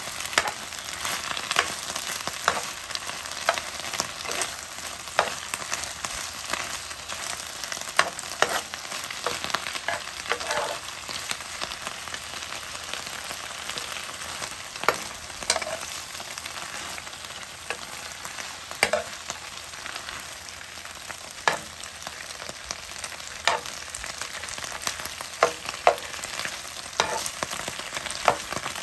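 Bok choy sizzling in a hot frying pan: a steady sizzle, broken every second or two by sharp clicks and scrapes of a metal utensil stirring and tossing the greens against the pan.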